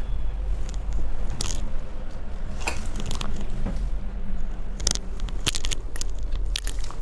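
Woven blouse fabric being smoothed and handled on the table: scattered crackly rustles and scrapes over a steady low hum.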